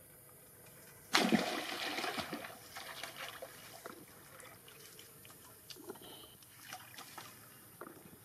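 A monkey splashes into a concrete pool with one loud splash about a second in, then water sloshes and drips as it climbs out.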